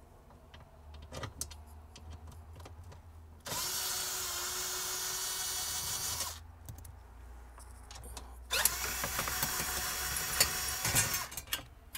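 Cordless quarter-inch impact driver with an 8 mm socket backing out the bolts of a car's lower dash knee bolster. It runs twice, about three seconds each time: once a few seconds in and again about two-thirds through, with small clicks of the socket on the bolts between the runs.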